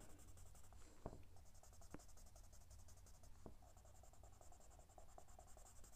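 Faint scratching of a graphite pencil pressed hard against paper while shading a dark area, with a few light ticks.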